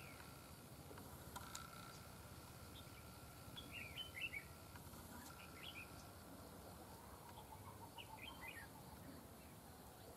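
Red-whiskered bulbul calling faintly: three short phrases of quick chirping notes, about four seconds in, again shortly after, and near the end.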